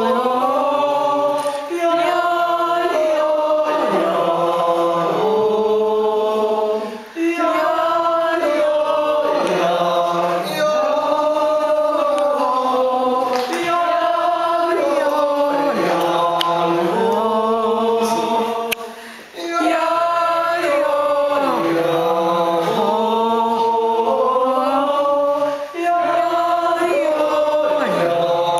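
A group of beginners singing a wordless yodel melody together in unison, in held notes that step up and down in pitch, with short breaks for breath between phrases.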